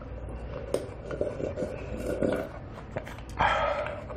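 Gulping and slurping galbitang broth with rice, drunk straight from the bowl, with a louder slurp near the end.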